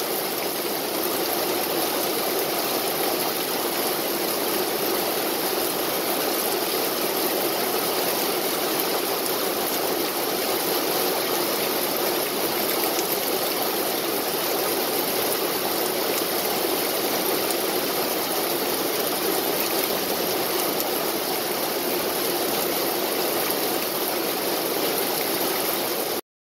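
Steady rain falling on tree foliage and grass, an even hiss with no breaks. It cuts off suddenly at the very end.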